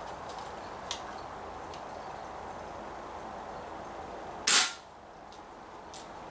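A Daisy Model 340 spring-powered BB pistol fires a single sharp shot about four and a half seconds in, loaded with a lightweight plastic BB. A faint click comes about a second in, over a steady background hiss.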